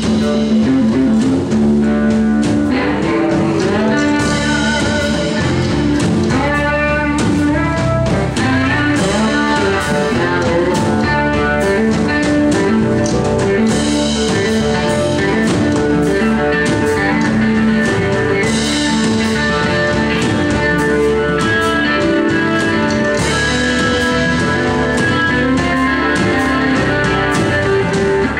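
Live blues band playing an instrumental passage: electric guitar out front over drums, bass and piano.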